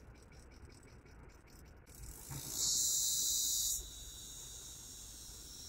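Forest insects buzzing high-pitched. The buzz pulses faintly at first, swells about two seconds in to its loudest for about a second, then settles into a steady, softer drone.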